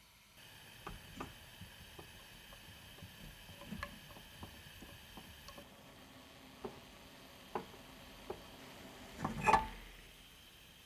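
Burner of an Iwatani portable cassette gas stove hissing steadily once lit, with small pops from condensed milk simmering in a pot. A louder rattle of clicks comes about nine and a half seconds in.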